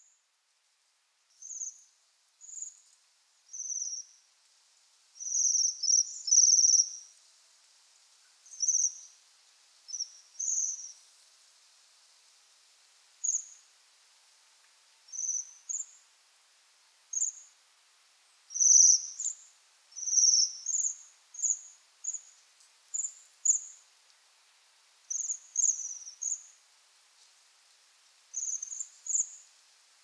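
Bohemian waxwings calling: short, high, thin calls repeated at irregular intervals, some bunched and overlapping, over a faint steady hiss.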